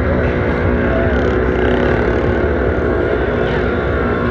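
Polaris Ranger side-by-side's engine running steadily under load as it wades through deep water, with water churning around the machine.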